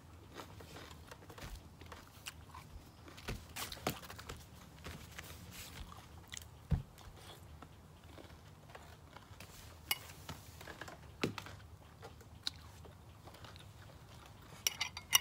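Close-up chewing of a mouthful of raw salmon salad, with scattered wet mouth clicks and smacks. A few quick metal clinks near the end, a spoon against the bowl.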